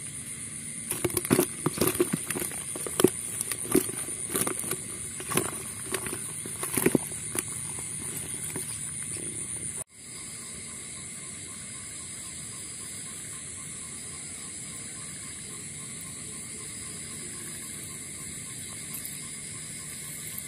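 Live climbing perch and snakeheads thrashing in a plastic bucket: irregular knocks and rattles for the first half. After that comes a steady high-pitched drone of night insects with little else.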